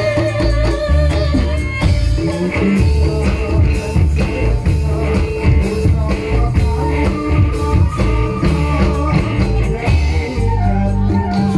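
Live ensemble music: gamelan metallophones and drums keep a steady beat under a male singer's voice.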